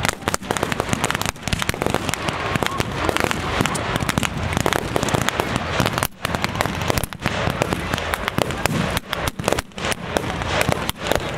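Battle-reenactment small arms firing blanks: dense, overlapping cracks of many shots, several a second, with short lulls.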